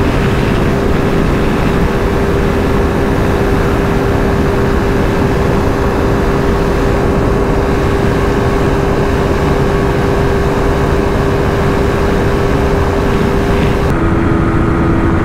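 Pulsar RS motorbike fitted with a 400cc engine, running flat out at about 170 km/h: a steady, unchanging engine note under a heavy rush of wind noise. About a second before the end, it gives way to a Yamaha R15 V4 at about 140 km/h, whose engine note is at a different steady pitch.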